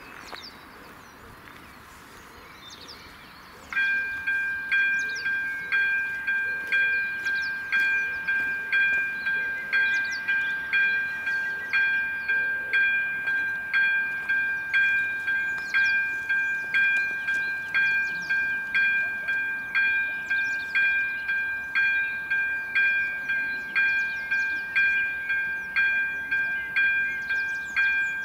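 Railway level crossing's electronic warning bell starting up about four seconds in, then dinging steadily and evenly, about three strikes every two seconds. It signals that the crossing has activated for an approaching train, with the red warning lights flashing.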